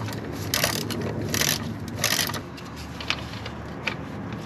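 Ratchet wrench clicking in three short bursts, then a couple of single clicks, as the 12mm bolts on a Subaru WRX rear shifter bushing are worked.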